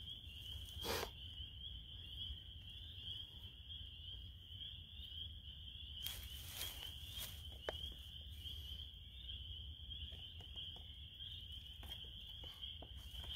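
Steady, high-pitched chorus of calling animals, with a low steady rumble beneath. A few sharp clicks sound about a second in and again later, and a brief rustle comes around the middle.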